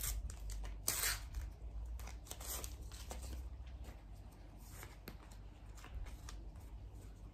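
A Panini Adrenalyn XL card pack's wrapper being torn open, with sharp crinkling crackles in the first three seconds, the loudest about a second in. After that come fainter clicks and rustles of the trading cards being handled.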